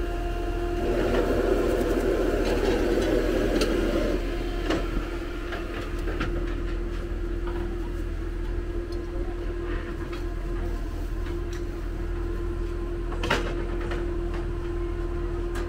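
Night-market ambience carried by a steady mechanical hum. A louder noisy stretch comes in the first few seconds, with scattered clicks and clatter and one sharper knock near the end.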